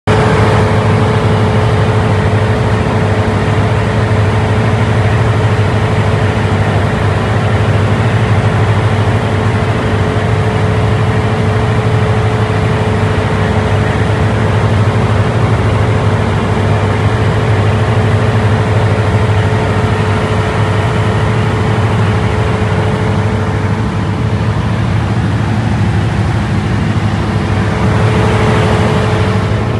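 Large enclosed generator set running steadily: a constant deep engine hum with a thin steady whine above it.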